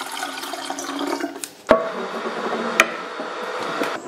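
Water poured from a filter jug into an electric kettle, a steady splashing fill. A sharp knock breaks it under two seconds in, then the pouring goes on, with a single click a second later.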